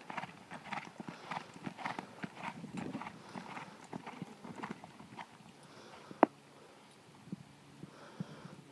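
Horse's hooves beating on soft dirt arena footing at a lope, slowing and dying away about halfway through as the horse comes down to a walk and stops. A single sharp click a little after six seconds, louder than the hoofbeats.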